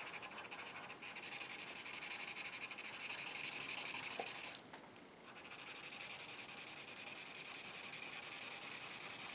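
Marker tip scratching across paper in quick back-and-forth hatching strokes, several a second, as dark shading is filled in. It stops for a moment about halfway through, then carries on in the same way.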